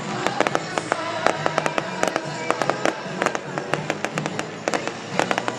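Fireworks bursting overhead: many sharp bangs and crackles in quick succession, several a second, with music playing underneath.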